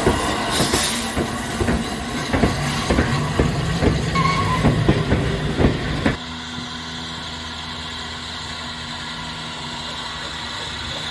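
Railway locomotive sounds: a run of irregular clanks and knocks over a low steady hum for about six seconds, then an abrupt change to a steadier, quieter hum and hiss.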